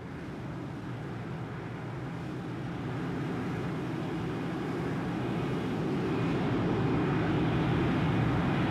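Jet aircraft engine roaring steadily, growing slowly louder.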